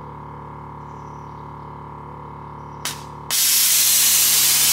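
Airlift air suspension on a BMW E91 Touring dumping its air: after a steady low hum, a short burst just under three seconds in, then a sudden loud hiss as the air springs vent and the car lowers onto its wheels.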